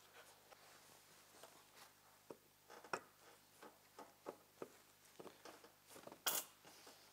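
Faint clicks and small knocks from gloved hands handling greased snowmobile axle parts, with one brief louder scrape about six seconds in.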